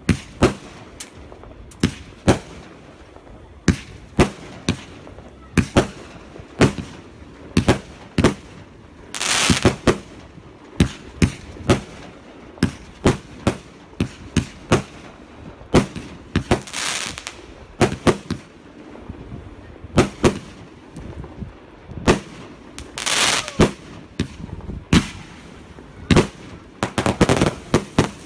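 Aerial fireworks display: a steady series of sharp bangs from shells bursting, about one to two a second. A few short spells of dense crackling bursts come in between, and another starts near the end.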